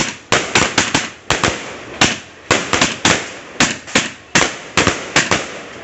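A 150-shot 'Takeshi Castle' firework cake firing in rapid succession: about three shells a second go up and burst in sharp bangs, each fading quickly before the next.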